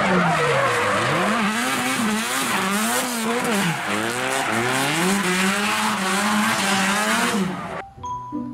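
Drift car's engine revving up and down again and again as it slides sideways through a corner, with tyres squealing over it; the sound cuts off near the end.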